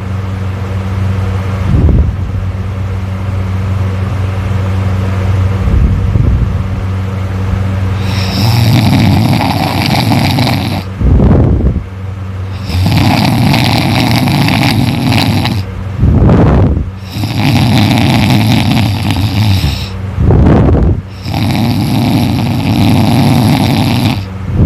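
A person snoring loudly in sleep, in a regular cycle of a long noisy breath of about two and a half seconds followed by a short low burst, repeating roughly every four seconds. The snoring grows much louder about a third of the way in, over a steady low hum.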